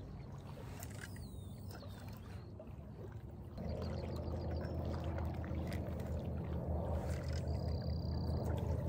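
A motor's steady low hum that gets louder about three and a half seconds in.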